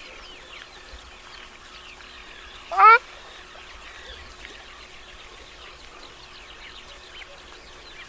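Ruddy shelduck giving one loud, short call that rises in pitch, about three seconds in, over a faint steady background of higher chirping.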